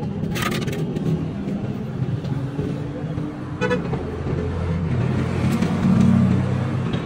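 Motor vehicle engine running, getting louder about five to six seconds in, with a brief horn toot about three and a half seconds in.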